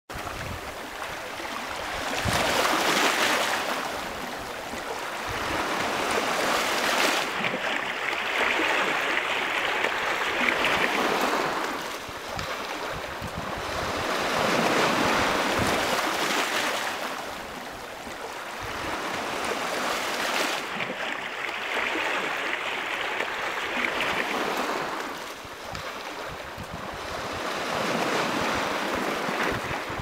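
Rough sea surf breaking on the shore, a steady rush of water that swells and falls back with each wave every several seconds.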